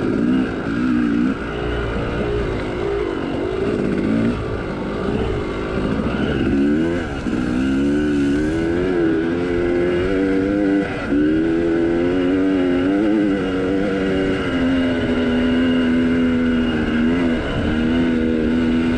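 Two-stroke Yamaha YZ dirt bike engine under race throttle, heard up close. It revs up and down repeatedly through the trail, then holds a steady high pitch near the end.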